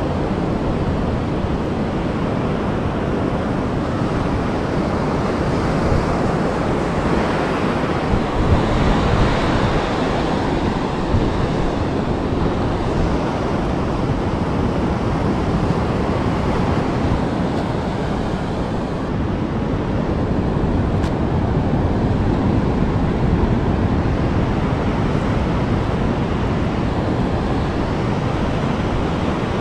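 Ocean surf breaking and washing up a beach, a steady rushing noise, with wind buffeting the microphone.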